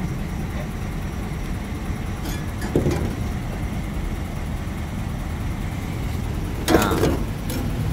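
A steady low engine rumble, with a brief louder sound about three seconds in and another, stronger one near the end.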